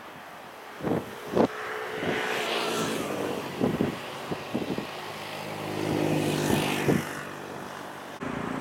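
Engine noise that swells and fades twice, with a steady hum, under irregular wind knocks on the microphone.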